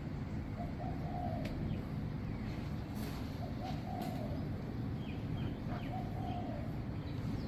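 A bird giving three short, low calls about two and a half seconds apart, with a few faint higher chirps, over a steady low outdoor rumble.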